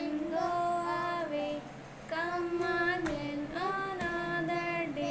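A young girl singing a nursery rhyme in long, drawn-out notes, in two phrases with a short break about two seconds in.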